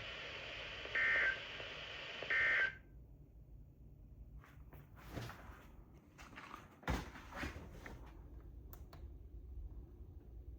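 A NOAA Weather Radio receiver plays the EAS end-of-message data burst over radio hiss: two short, harsh bursts of digital tones about a second apart, after which the radio audio cuts off about three seconds in. Faint scattered clicks and one sharp knock follow.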